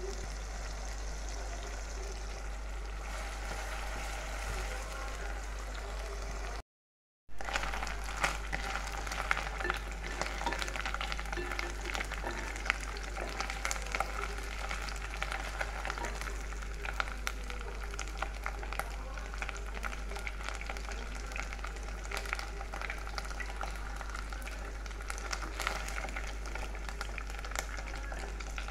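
Pieces of dried Bombay duck (loitta shutki) sizzling in hot oil in a pan, a steady hiss full of small crackles and pops, with a spatula stirring them. A low steady hum sits underneath, and the sound cuts out briefly about seven seconds in.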